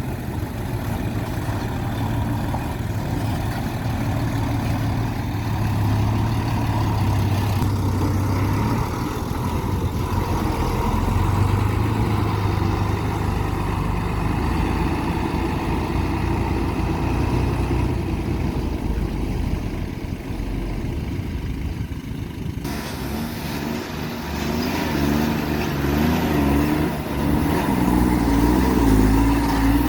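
Heavy earthmoving machine's engine running steadily, with the sound changing abruptly about 8 and 23 seconds in and the engine note wavering up and down near the end.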